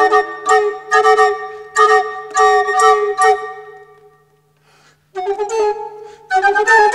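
Recorder quartet, including a bass recorder, playing together in short, crisp, detached notes. The music dies away about four seconds in, and after a brief pause the recorders start again.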